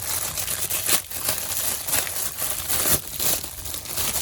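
Plastic packaging crinkling and rustling as it is handled and pulled open, with sharper crackles about a second in, two seconds in and near the end.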